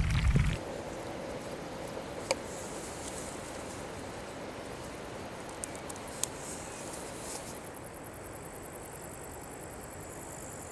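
Glacier ice recording: a loud low rumble cuts off about half a second in, leaving a steady faint hiss with a few small sharp clicks and pops from the melting ice.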